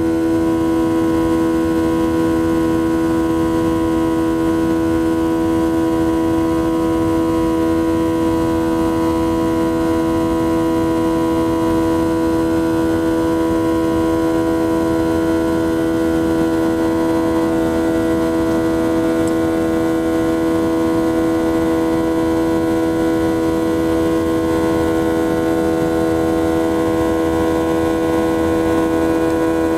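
Boeing 737's CFM56 turbofan engines at climb power, heard inside the cabin beside the wing: a steady rushing drone with several steady whining fan tones over it.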